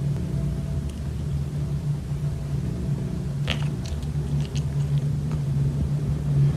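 Asian leopard cat purring steadily and close up. A few short wet mouth clicks come about three and a half seconds in as it licks its lips.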